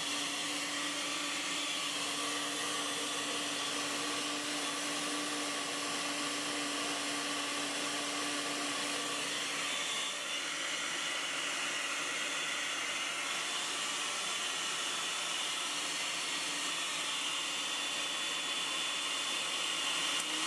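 Countertop blender motor running steadily at high speed, whirring as it blends graphite in acetone to exfoliate it into graphene.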